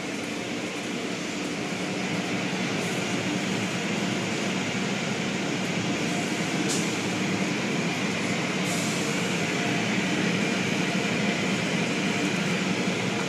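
Automatic car wash heard from inside the car: rotating brushes and cloth strips scrubbing over the body with water spray, a steady rumbling wash that grows a little louder over the first few seconds.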